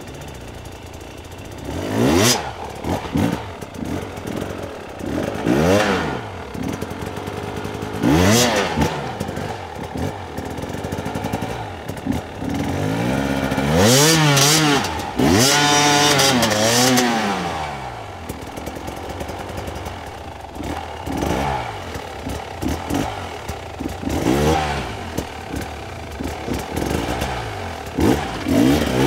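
Hard enduro dirt bike's two-stroke engine revving in repeated sharp blips, each rise in pitch falling straight back, with a longer run of revs rising and falling about halfway through as the bike picks its way over rocks; clatter and scraping of the bike on the rock.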